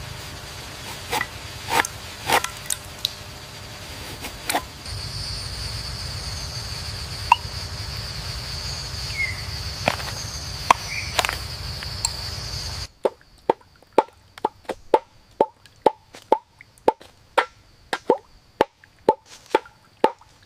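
Latex from a tapped rubber tree dripping and plopping into a collecting cup, scattered drops over a steady high hum. About 13 seconds in, the hum cuts out and a quick, regular run of drips follows, about two a second.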